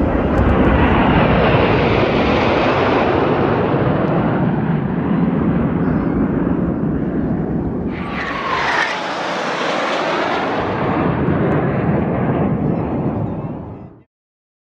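A formation of jet aircraft flying past, a loud steady jet rush. About eight seconds in a second surge comes with a falling whine as the jets pass over, and the sound cuts off suddenly near the end.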